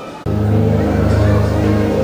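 The tail of a choir's singing dies away, then about a quarter second in, loud music starts abruptly with steady, sustained low bass notes and higher held notes above them.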